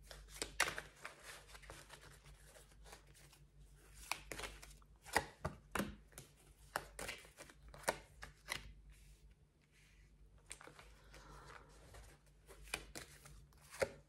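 Tarot cards being shuffled and laid down on a table, as irregular sharp taps and slaps with a quieter stretch in the middle.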